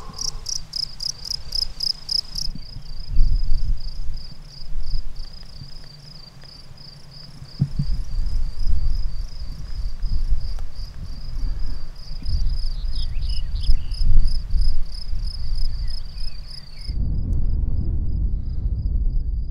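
Crickets chirping in a steady, rapid pulsing train, fainter near the end, over a low rumbling noise that swells and fades.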